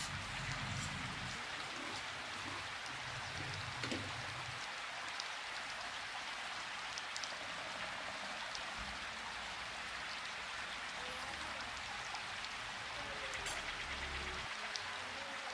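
A steady, even hiss with a few faint clicks.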